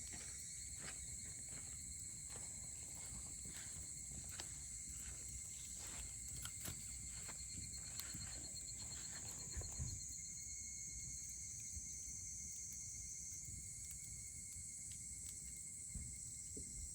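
Wood campfire crackling with many small pops, thinning out after about ten seconds, under a steady high trilling of insects.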